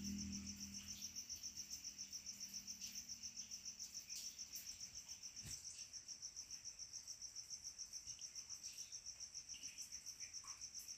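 A cricket chirping steadily, a faint high-pitched trill pulsing about eight times a second.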